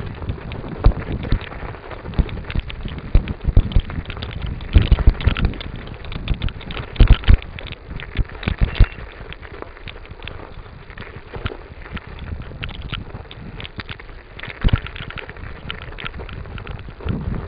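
Bicycle riding over a rough, snow-covered track: the bike and its mounted camera jolt and rattle in irregular knocks and crackles over a steady rush of noise. The knocks come thickest and loudest in the first half.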